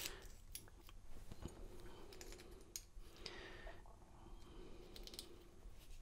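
Faint, scattered small clicks and scrapes of a brass lock cylinder and key blank being handled and worked by hand.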